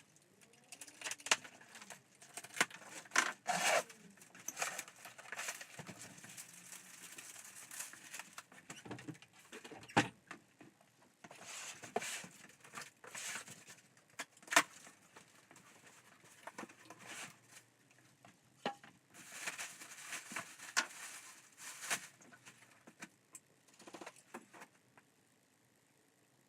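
Packaging being handled while a tall larder fridge is unboxed: irregular rustling and tearing, with sharp knocks and clicks, the loudest about 3, 10 and 14.5 seconds in.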